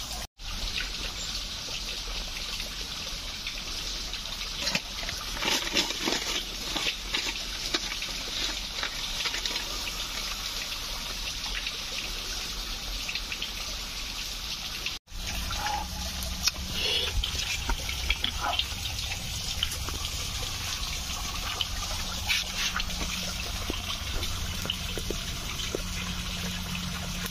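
Steady rush of river water, with scattered small clicks and crackles from a twig campfire being lit and fed. The sound drops out briefly twice, once near the start and once about halfway.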